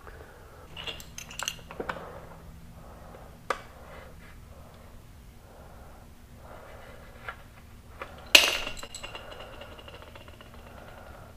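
Small hard parts clinking and knocking as they are handled, with a few light clicks early on. A little past eight seconds in comes one sharp, loud clink that rings on briefly.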